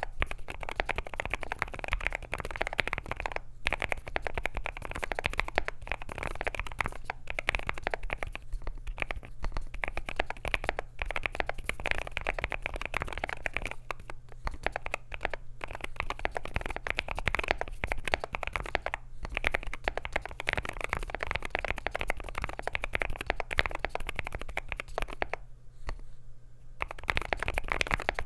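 Fast, continuous typing on an AKKO JIN01 gasket-mounted aluminium mechanical keyboard with lubed Akko Rosewood switches, FR4 plate and PBT Cherry-profile keycaps: a dense run of soft keystroke clacks, with a few brief gaps and a longer pause near the end.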